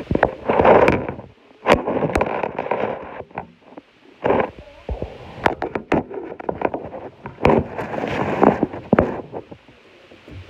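Handling noise from a phone being moved about and held against the body: irregular knocks and clicks with bursts of rubbing and scraping on the microphone.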